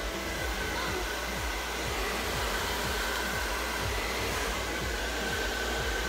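Cheap handheld hair dryer running steadily, blowing with an even rushing noise and a faint steady whine.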